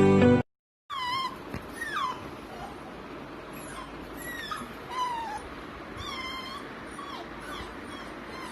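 A 45-day-old Kombai puppy whimpering. Its thin, high, wavering whines come many times in short bursts, starting about a second in.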